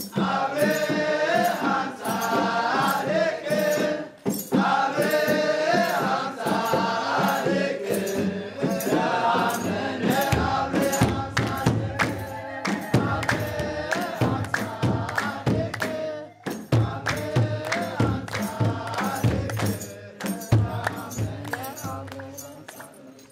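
Music with choral singing over a steady percussion beat, fading out near the end.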